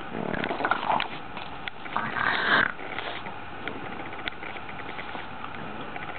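Boston terrier puppy sniffing in two short noisy bursts, the louder one about two seconds in, with a few light clicks between.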